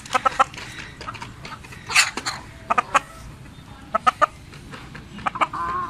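Chickens clucking in short clusters of quick notes, with a louder, rougher squawk about two seconds in and a longer wavering call near the end.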